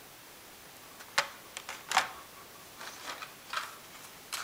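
Hot Wheels blister-pack cards being handled and swapped: the plastic bubble and cardboard backing give a series of short clicks and crackles, the sharpest about a second and two seconds in.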